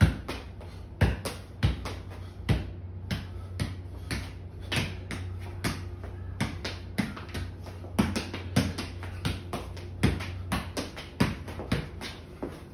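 A soccer ball being juggled: a quick, irregular series of sharp kicks and touches off the feet and thigh, about two to three a second, mixed with shoe taps on a concrete floor. A steady low hum runs underneath.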